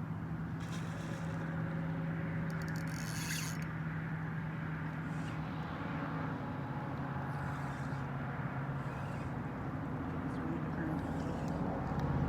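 Steady low motor hum, such as a vehicle engine, under outdoor noise, with short rasping sounds about a second and about three seconds in.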